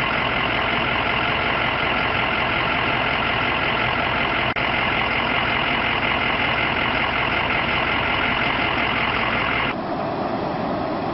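Steady rushing noise of floodwater pouring across a road. Near the end the sound shifts and drops a little as brown floodwater surges past a half-submerged car.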